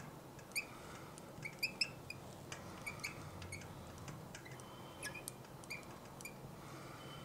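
Marker pen squeaking on a glass writing board as words are written: faint, short, high squeaks at irregular intervals, with a few light ticks.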